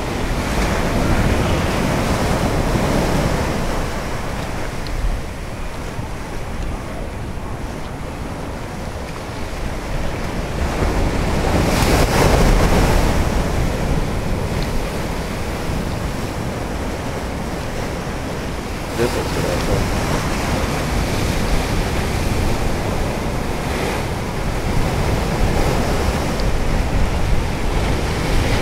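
Ocean surf breaking and washing over a flat rock shelf, rising and falling with each wave, the biggest surge about twelve seconds in. Wind rumbles on the microphone throughout.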